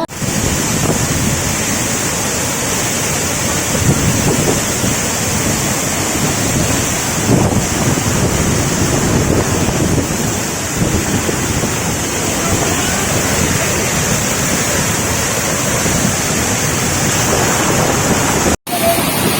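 Steady rush of water in the rain, with wind buffeting the microphone. It cuts out abruptly for a moment near the end.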